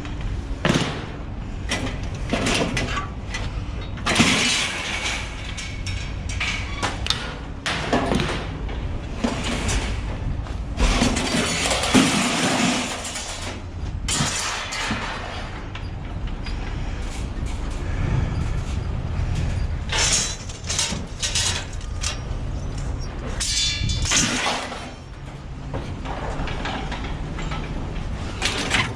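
Scrap metal clanging and clattering in irregular bursts as pieces are moved and dropped, over a steady low rumble.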